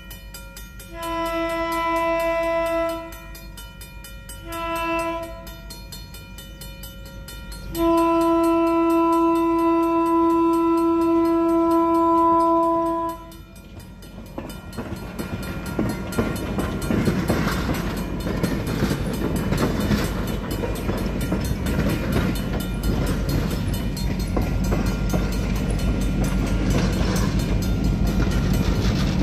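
A caboose's air horn sounds the grade-crossing signal on one steady note: a long blast, a short one, then a long blast of about five seconds. After that the train rolls slowly over the crossing, its wheels rumbling and clattering louder toward the end as the diesel locomotive draws near.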